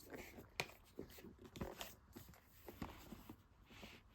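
Faint handling of a cardboard iPad box: fingers tapping and scraping on it, with a few short sharp clicks spread through.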